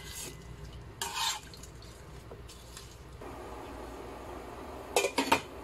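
Hands mixing marinated meat and potato chunks in a stainless steel pot, in a few short wet bursts. About three seconds in, a steady whirr starts, the induction cooker's cooling fan, and near the end a glass lid clatters down onto the pot a couple of times.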